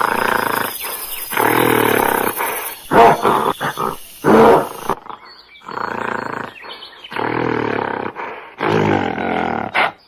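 Gorilla giving a series of loud roaring calls, each about a second long, with short pauses between them.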